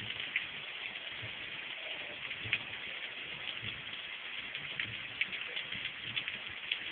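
Rain falling on a paved street: a steady hiss with scattered sharp taps of drops landing close by.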